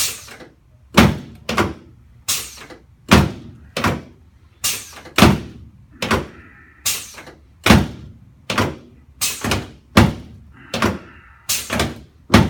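A fast series of sharp thumps, about two a second and often in pairs, from chiropractic adjustments of the left sacroiliac joint and sacrum.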